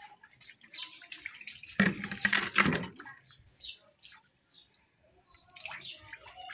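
Water splashing in a plastic bucket as a baby sitting in it moves its hands through the water, with a loud spell of splashing about two seconds in.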